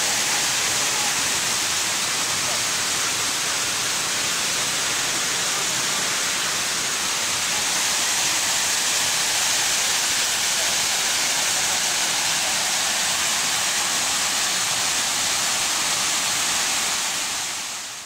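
Falling water of a large waterfall, heard as a steady rushing noise that fades out near the end.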